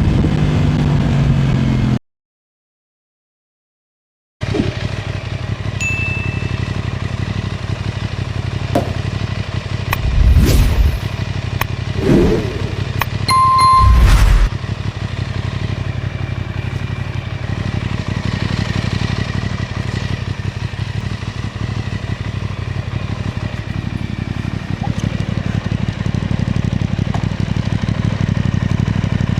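Aprilia RS660's parallel-twin engine running, slowing at first, then cutting out to silence for about two seconds. After that it runs steadily at low revs, with a few short louder thumps around the middle.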